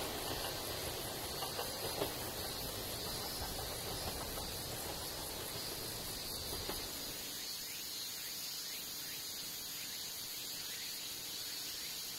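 Insects trilling steadily from the roadside vegetation, a constant high-pitched chorus. A low rumble underneath fades away a little past halfway.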